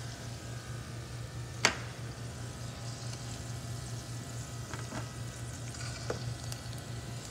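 Battered onion rings sizzling as they deep-fry in a pot of oil, over a steady low hum. Metal tongs make one sharp clack against the pot about a second and a half in, and a few lighter taps later.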